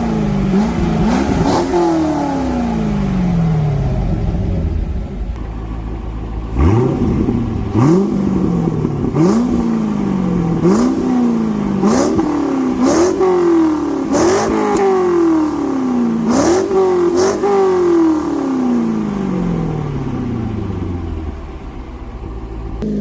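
C5 Corvette Z06's LS6 V8 through an aftermarket exhaust under hard acceleration. The revs climb and drop in quick steps, like a run of upshifts, with sharp cracks at the changes. In between come long stretches of falling pitch as the car coasts down.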